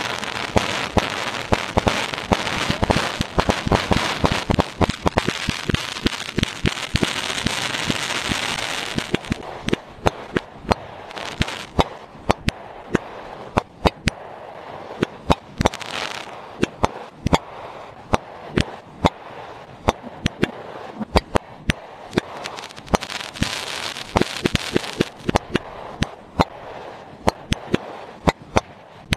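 Fireworks crackling and popping: a dense run of sharp cracks over a hiss for about the first nine seconds, then thinner, scattered pops with short flurries of crackle.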